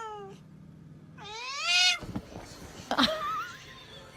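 A cat meowing: one drawn-out meow that rises and falls in pitch, about a second long. A short sharp knock follows about three seconds in.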